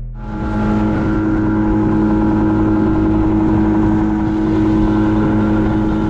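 Outboard motor of a small aluminium fishing boat running steadily under way, a constant drone with water and hull noise. It comes in just after the start.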